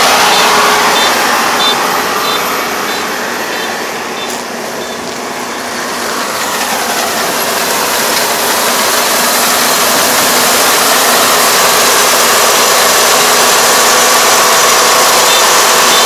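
Kubota ER470 combine harvester running at work, its engine and threshing machinery making a loud, steady mechanical noise as it cuts rice. The noise dips for a couple of seconds a few seconds in, then comes back up to full strength.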